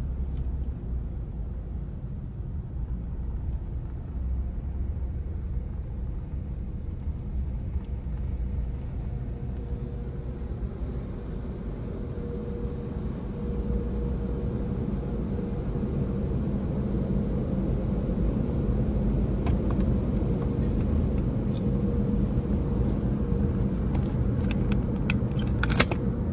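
Automatic tunnel car wash equipment running: a steady low rumble with a faint hum, getting louder over the second half, with a run of sharp clicks and taps near the end.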